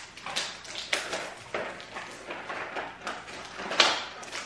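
A small cardboard box being cut open with a blade and handled: a run of short scrapes, rustles and crinkles of cardboard and packaging, the sharpest a little before the end.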